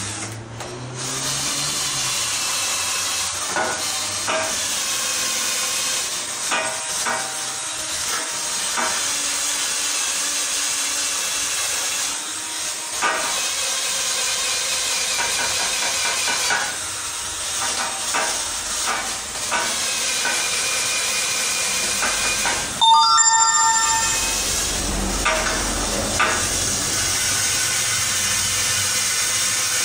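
Cordless drill/driver working on a stripped steel bicycle frame, with clinks and knocks of metal parts over a steady hiss. One sharper ringing metal clank comes about three-quarters of the way through.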